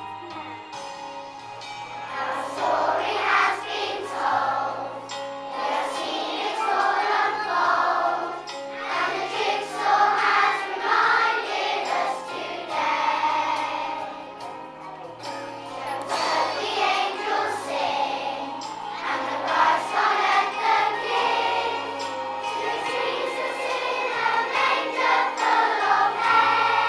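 A choir of children singing a song with instrumental accompaniment; the voices come in about two seconds in over the already-playing backing.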